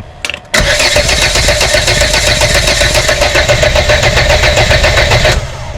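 Volvo 480 engine being cranked by its starter motor, with an even rapid pulsing, for about five seconds. It starts suddenly about half a second in and cuts off abruptly near the end.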